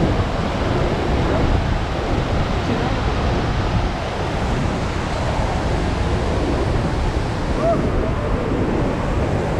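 Iguazu Falls and the rapids of the Iguazu River above them: a steady, dense rush of falling and churning water, heaviest in the low rumble.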